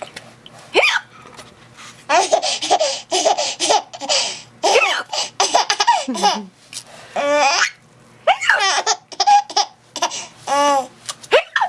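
A baby laughing in repeated bursts of high-pitched giggles at someone's hiccups, with a short sharp hiccup about a second in.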